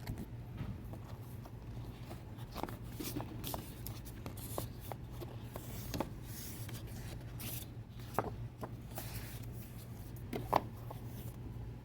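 Heavy-duty paper prints being handled: soft rubbing and sliding of paper with scattered light taps and rustles, over a steady low hum.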